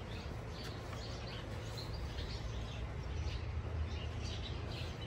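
Chevrolet 327 small-block V8 with an L76 cam idling steadily, with birds chirping now and then.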